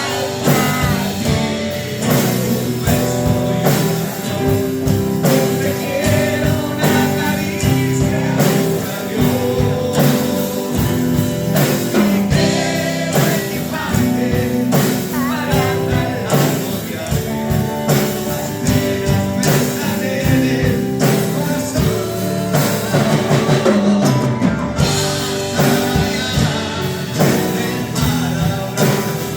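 Live band playing a ballad, with a lead singer over guitar, bass and drums.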